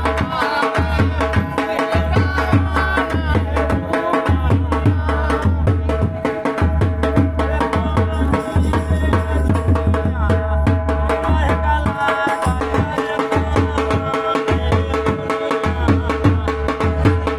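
A dholak, the two-headed wooden barrel drum, beaten by hand in a fast, steady folk rhythm, with other music carrying on over it.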